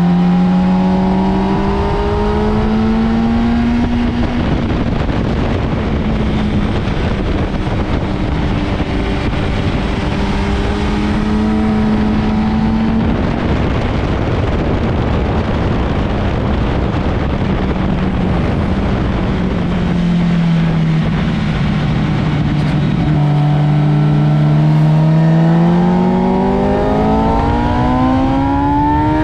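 Sport motorcycle engine at track speed, heard from on the bike under heavy wind rush. The engine note climbs at first, is largely drowned by wind through the middle, drops about twenty seconds in as the bike slows, then climbs hard again near the end.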